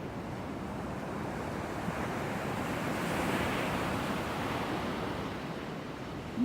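Pacific Ocean surf: a wave breaking and washing up the beach, swelling to a peak about halfway through and then easing off.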